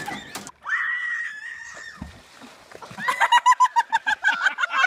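A person screaming: one high cry held for about a second, then, after a short pause, a fast run of repeated high shrieks.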